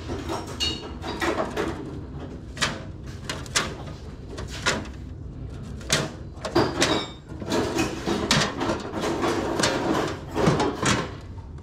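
Old stamped-metal license plates clacking against one another as they are flipped forward one at a time in a foam cooler, a sharp clack every second or so at an uneven pace.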